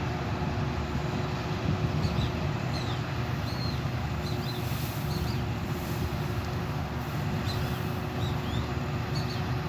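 Vishal 435 combine harvester running steadily while cutting paddy, a constant even hum under a dense machine noise, with short high chirps now and then over it.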